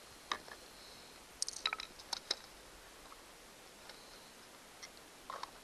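Light clicks and taps of small parts being handled: the plastic battery cover and coin-cell battery of a digital tach/hour meter. A quick run of clicks comes in the middle, with single clicks near the start and near the end.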